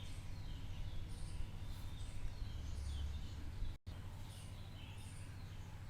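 Birds chirping in short, repeated high calls over a steady low hum, with the sound cutting out for an instant a little past halfway.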